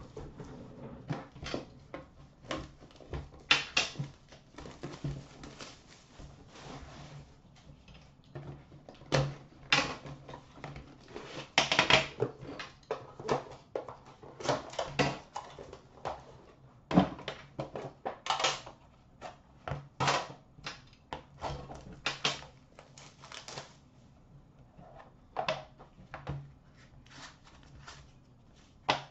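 Handling of a hockey card box: a metal tin box is set down and opened and its inner box lifted out, giving many irregular clicks, taps and knocks of hands, lid and packaging.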